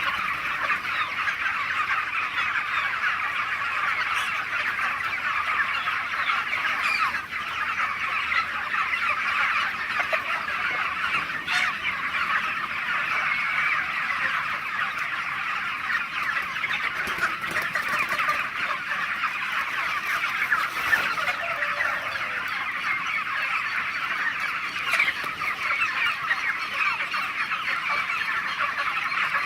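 A large flock of chickens calling and clucking all at once: a dense, unbroken chatter of many overlapping calls.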